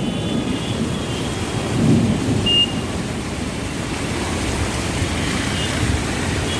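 Heavy rain pouring down steadily, with a low rumble swelling about two seconds in and a brief high beep just after.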